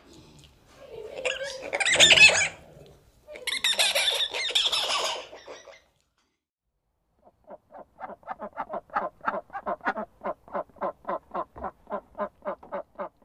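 Two harsh, screechy monkey calls in the first half, each about two seconds long. After a short pause, a duck gives a rapid, even series of quacks, about four or five a second, running to the end.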